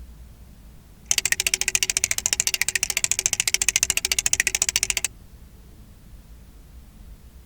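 Flip dot display's dots flipping over one after another: a fast, even run of sharp electromechanical clicks that starts about a second in and stops suddenly about four seconds later.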